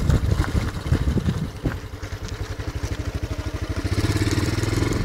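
Motorcycle engine running as the bike is ridden. Its pitch and level rise a little about four seconds in as it speeds up.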